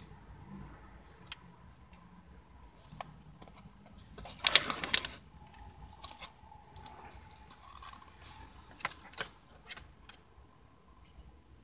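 Plastic food wrapper crinkling as a packaged tortilla wrap is unwrapped, with one loud tearing crackle about four and a half seconds in and small scattered rustles and clicks around it.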